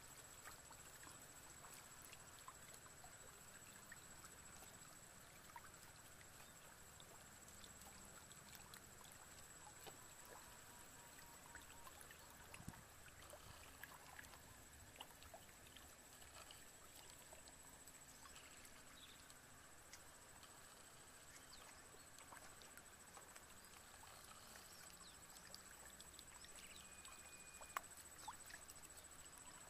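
Near silence: faint background hiss with a steady high-pitched whine and scattered faint ticks.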